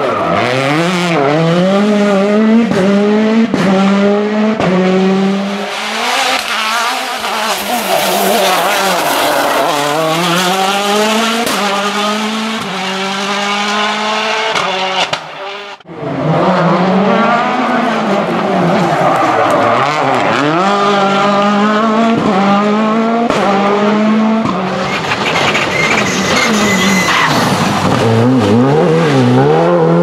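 Hyundai i20 WRC rally car's turbocharged four-cylinder engine revving hard through a hairpin, its pitch dropping and climbing again and again through the gear changes. After an abrupt cut about halfway through, a second rally car revs through its gears the same way.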